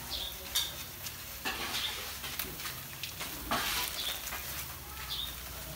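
Crabs frying in a steel wok over a charcoal fire: a steady sizzle and crackle, with a few sharp clicks.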